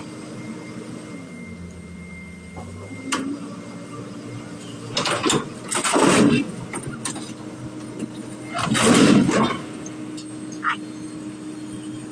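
Crawler excavator's diesel engine running under load, its note dipping and rising again as the machine works. Two loud, harsh bursts of noise stand out, one about halfway through and another a few seconds later.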